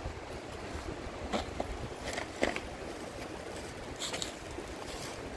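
Steady rush of flowing water, with a few short light clicks or knocks about a second and a half, two and a half and four seconds in.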